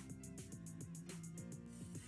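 Background music with a steady beat of about four hits a second over a bass line and held notes.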